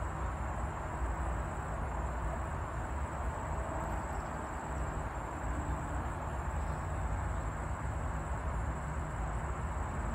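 Steady outdoor background noise: a low rumble with a constant thin high-pitched tone over it, and no distinct events.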